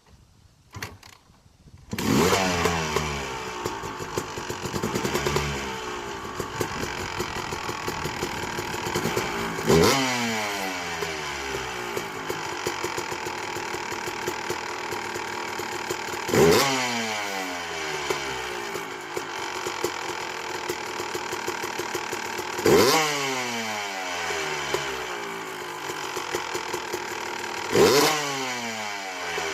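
2008 Yamaha YZ250 two-stroke dirt bike engine, fitted with a 285 big-bore kit, starting about two seconds in. It then idles, with quick throttle blips about every six seconds that rise sharply and fall back to idle. It has just been set five clicks richer on its Smartcarb, and the rider judges it still running too lean.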